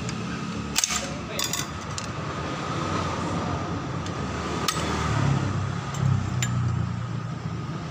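Sharp metal clicks and clinks from the GY6 scooter's kick-start shaft, spring and gear being handled and worked loose by hand, a few close together about a second in and more scattered later, over a steady low hum.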